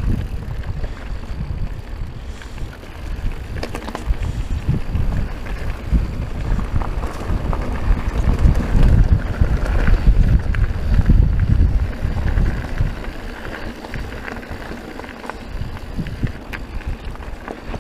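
Wind buffeting the microphone, heaviest in the middle stretch, over a mountain bike rolling down a rocky dirt trail, with scattered clicks and rattles from the tyres on rocks and the bike.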